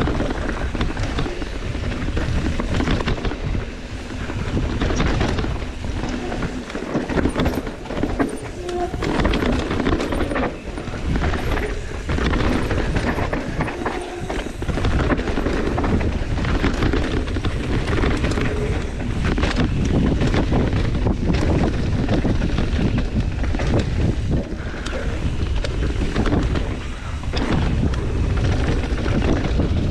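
Mountain bike riding down a dry dirt trail: tyres rolling over dirt, roots and rocks, with the bike rattling in many uneven knocks.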